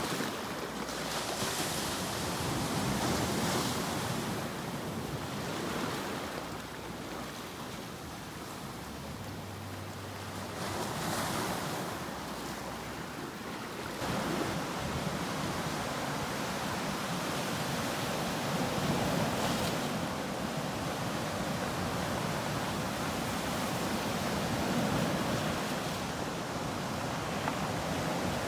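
Ocean surf: waves breaking and washing up in a continuous rush that swells and eases every few seconds, stepping up suddenly about halfway through.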